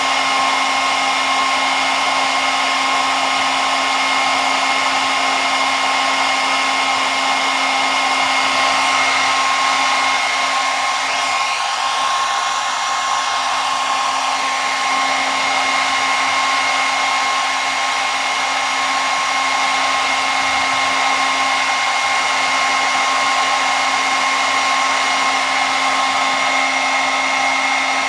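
Hair dryer running steadily: a continuous rush of blown air with a steady motor whine.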